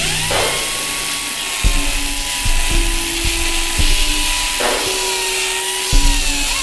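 Power drill turning a step drill bit into a PVC pipe tee. Its whine climbs as the motor spins up at the start, holds steady, then sags near the end. Background music with held notes plays over it.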